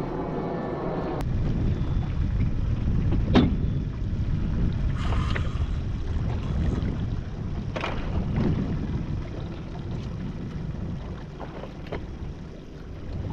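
Wind buffeting the microphone and water noise on a sport-fishing boat at sea, a loud low rumble throughout. A steady hum cuts off abruptly about a second in, and there are a couple of sharp knocks.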